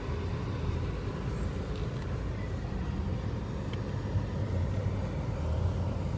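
Steady engine and road noise of a bus driving along a road.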